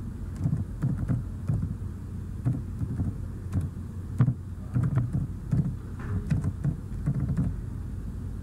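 Computer keyboard keystrokes in irregular taps, a few a second, over a steady low hum.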